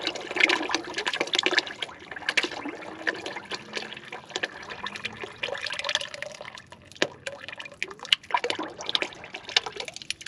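A thin stream of water, oil and sludge running from the drain plug hole of a 1955 Chevrolet stovebolt six's oil pan and splashing into a full drain pan, thinning toward drips near the end. The crankcase is full of water and solids, a bad sign for the engine.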